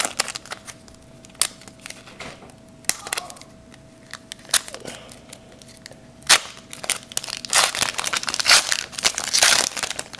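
Foil wrapper of a trading card pack crinkling as it is handled and torn open by hand. Scattered crackles and clicks give way to dense crinkling over the last couple of seconds.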